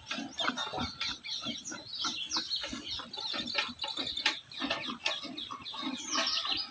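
Birds chirping and calling in quick, short notes, with many brief clicks underneath.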